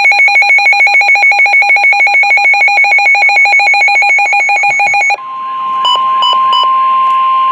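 Weather alert radio sounding an alert: a loud, fast pulsing electronic alarm beep, about eight pulses a second. About five seconds in it switches to the NOAA Weather Radio's steady single-pitch warning alarm tone, with three short beeps over it just after it starts. These signal an incoming warning broadcast.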